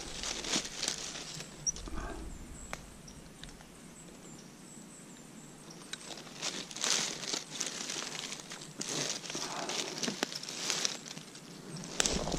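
Footsteps rustling and crackling through dry fallen leaves. They come in bursts in the first two seconds, ease off for a few seconds, then pick up again from about six seconds in.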